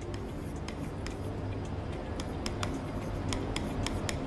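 Someone writing by hand: scattered short ticks and scratches of the pen, a few a second, over a low steady hum.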